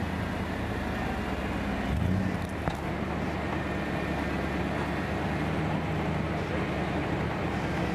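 Lifted off-road pickup truck's engine running at low speed as it crawls through deep snow on big tyres, its pitch rising briefly about two seconds in.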